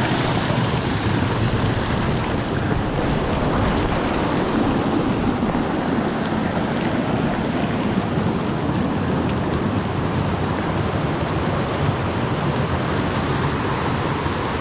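Steady rushing wind noise on the microphone of a moving camera as a mountain bike rolls down a wet concrete lane.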